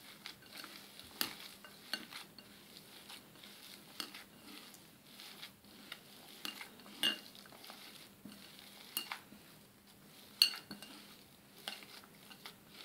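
Hands mashing and mixing a soft boiled-potato filling in a glass bowl: quiet squishing and rustling, broken by scattered light knocks and clinks against the glass, two of them louder about 7 and 10 seconds in.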